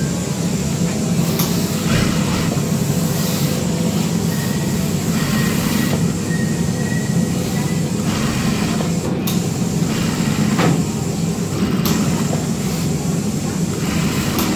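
Industrial single-needle lockstitch sewing machine running steadily as it stitches a seam through cloth, with a few short clicks along the way.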